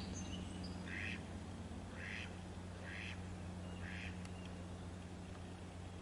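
A duck on the river honking: five short calls, about one a second, that stop about four seconds in.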